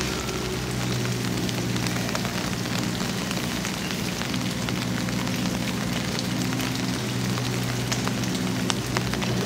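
Steady rain falling, a continuous hiss with many small drops ticking on hard surfaces, over a steady low hum.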